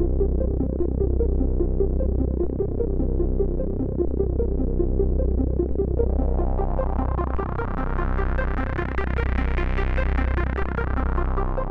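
Chiptune music from a Commodore 64C's 8580 SID sound chip: fast repeating short synth notes over a steady low bass. The tone grows brighter from about halfway in, then dulls again near the end.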